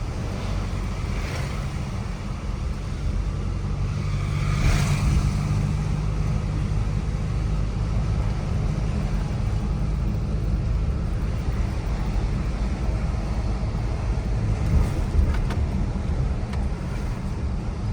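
Chevrolet S10 pickup driving, heard from inside the cab: a steady low drone of engine and road noise, swelling slightly about four or five seconds in, with a couple of faint clicks near the end.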